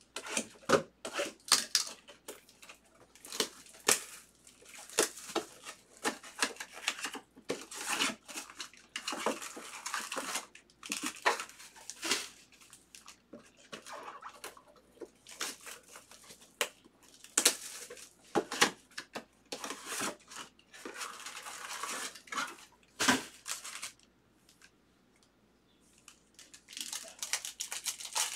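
Baseball-card box and foil packs being opened and handled: repeated tearing, crinkling and rustling of wrappers with sharp clicks and taps. There is a quiet pause of a couple of seconds near the end, then the rustling starts again.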